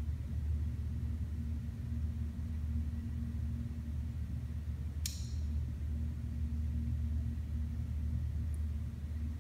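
Steady low mechanical hum, with one sharp click about halfway through.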